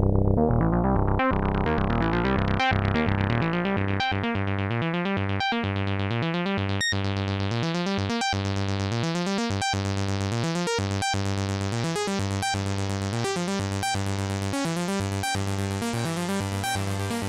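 Dreadbox Typhon monophonic analog synthesizer playing a repeating, rhythmically retriggered note pattern. Its filter opens from about three seconds in, so the tone turns much brighter and buzzier.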